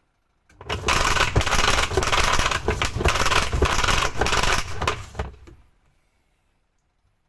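Sharp washing machine running with a very harsh, loud grinding rattle that starts about half a second in and stops after about five seconds. The tub does not spin, the sign of a broken part in the machine.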